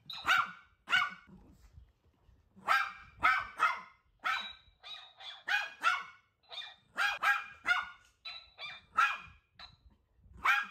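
Long-haired Chihuahuas barking: about twenty sharp, high-pitched yaps in irregular runs, often two or three in quick succession, with a short pause about two seconds in.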